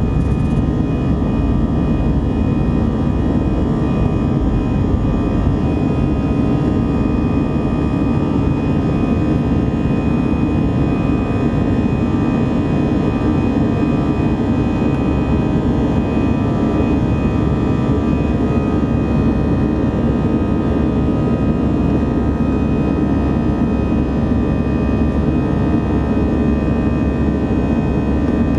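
Airbus A319's jet engines at take-off thrust, heard inside the cabin over the wing during lift-off and initial climb. A steady, loud, low roar runs with thin steady whining tones above it.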